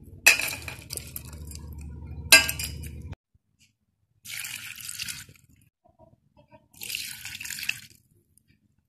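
Two hard knocks of spices being crushed, over a low hum that cuts off about three seconds in. Then two short splashes, about a second each, as the crushed spices are tipped into a pot of water.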